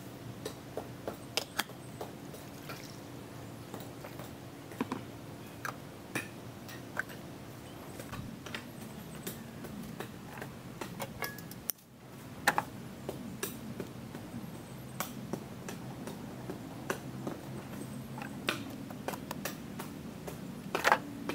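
Sparse light clicks and taps of hands working with cooking utensils, then a metal rod raking charcoal embers in a clay brazier, clinking several times near the end. A faint steady low hum runs underneath.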